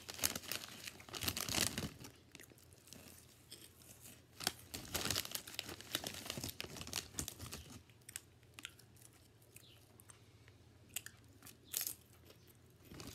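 Plastic snack bag crinkling and crunching close to the microphone, in irregular bursts that thin out after about eight seconds, with a few sharp crackles near the end.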